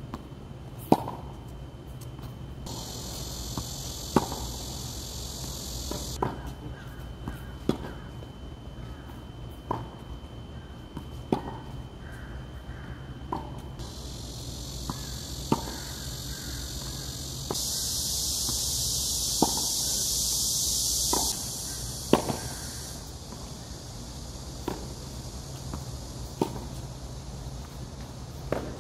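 Tennis ball struck by a racket in a rally, a sharp pop about every two seconds. A high insect drone comes and goes behind it and is loudest a little past the middle.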